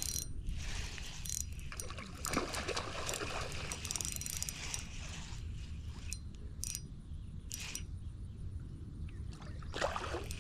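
Water splashing and sloshing around a kayak, with several brief sharper splashes along the way.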